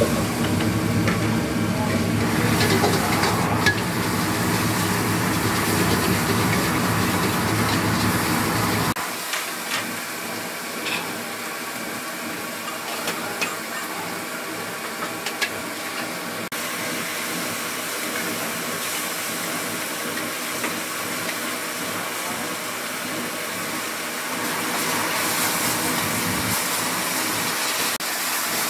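Wok cooking at a street-food stall: steady hissing and sizzling with scattered sharp metal clinks. A deep steady rumble underneath cuts off abruptly about nine seconds in.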